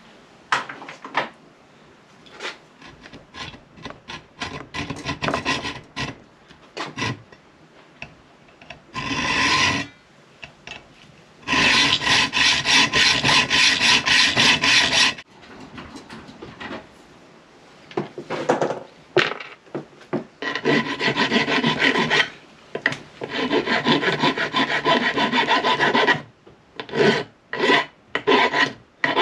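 Hacksaw cutting a steel M10 bolt by hand to shorten it, a rasping back-and-forth stroke. It starts as short scattered strokes, then runs on in long steady spells with pauses between.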